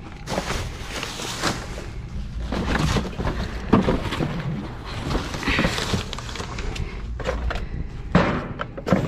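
Rummaging through trash in a metal dumpster: cardboard boxes and plastic bags rustling and scraping, with irregular knocks and thuds against the dumpster, the sharpest about four seconds in and twice near the end.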